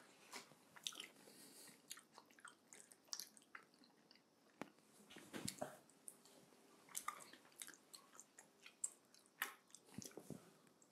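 Faint, close-miked chewing of roast chicken, made up of many short, wet mouth clicks and smacks with no speech.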